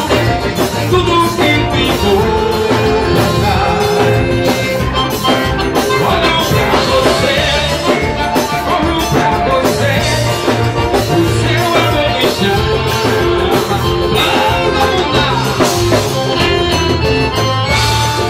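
Live gospel band music with a steady beat and a strong bass line, with a man singing into a microphone.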